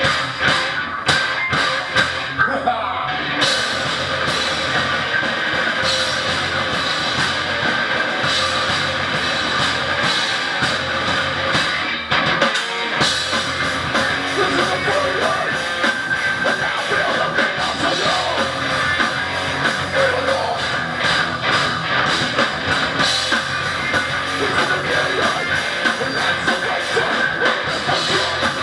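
Heavy metal band playing live: electric guitars, bass guitar and a drum kit playing steadily and loud.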